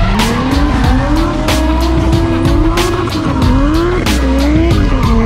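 Drift car engines revving up and down several times with tyre squeal as the cars slide, mixed with music that has a steady beat and deep bass.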